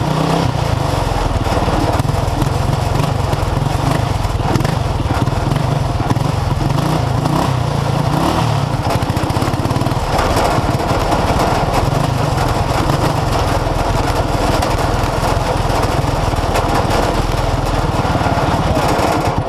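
Racing lawn tractor's engine running hard at high revs, a loud, steady mechanical drone.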